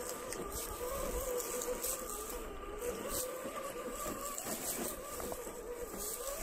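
Traxxas TRX-4 Sport RC crawler's electric motor and geared drivetrain whining as it crawls over loose rocks, the pitch wavering up and down with the throttle. A few faint clicks come through now and then.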